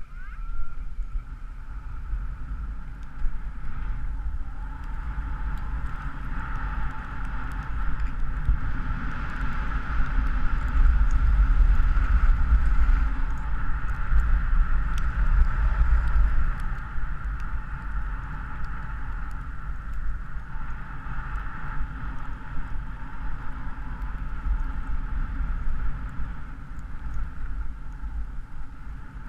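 Wind buffeting an action camera's microphone while skiing downhill, a steady low rumble with the hiss of skis sliding over snow, loudest about a third of the way through.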